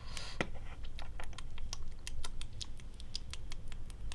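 Small plastic toy pieces clicking and tapping as they are handled and set down on a cardboard surface: quick, irregular light clicks, several a second.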